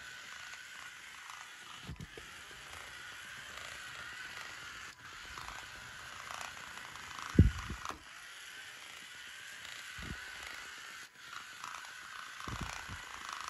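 Small DC gear motors of a four-wheel robot car whining as it drives and reverses on carpet. A few dull low thumps cut in, the loudest about seven and a half seconds in.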